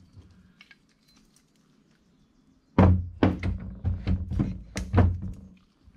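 A quick run of about eight heavy thunks and clunks over some three seconds, starting about halfway through, as the VW Type 1 engine case is handled and rotated.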